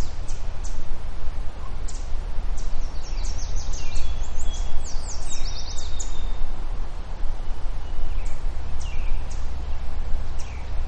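Small birds chirping over a steady low rumble. The calls are many short, high notes that slide downward, coming in quick clusters that are busiest in the middle few seconds.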